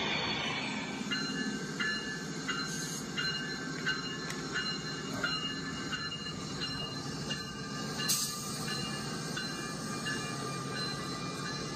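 LEGO train rolling along plastic track past the platform: a steady rumble and whine with a click about every two-thirds of a second, and one sharper click about eight seconds in.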